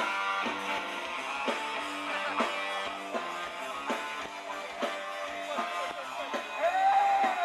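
Ska-punk rock band playing an instrumental passage live, electric guitar strumming chords in a steady rhythm. Near the end a held note swells, bends up and falls back, the loudest part.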